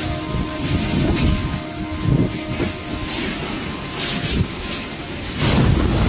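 Strong typhoon wind gusting in uneven surges and buffeting the microphone, with a few sharp crackles. The loudest gust comes about five and a half seconds in.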